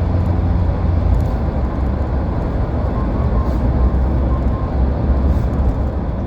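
Steady low rumble of road and engine noise inside the cabin of a moving car.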